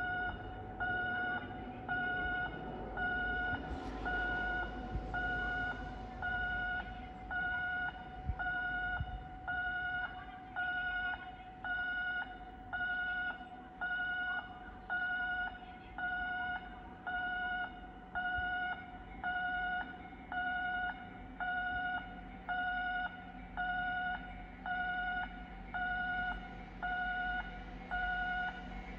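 Electronic railway warning alarm sounding as a train approaches: one steady tone beeping on and off about once every second and a quarter. A faint low hum comes in about halfway through.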